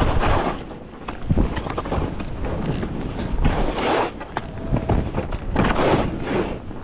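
Skis hissing and scraping over packed, tracked-up snow in a run of turns, the scrape swelling every two seconds or so, over a low rumble of wind buffeting the microphone.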